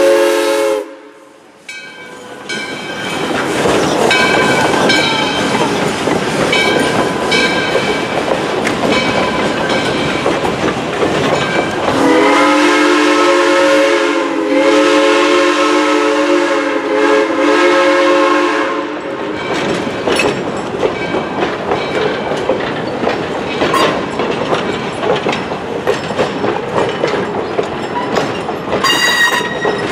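Arcade & Attica No. 18, a 2-8-0 Consolidation steam locomotive, passing close by with its train. A steam whistle chord cuts off just after the start, and a second long blast of several seconds begins about twelve seconds in. The passenger coaches then roll past with their wheels clacking over the rail joints.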